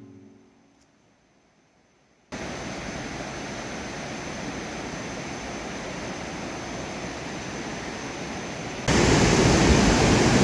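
Music fading out, then the steady rushing of a waterfall that starts abruptly about two seconds in and jumps louder for the last second and a half.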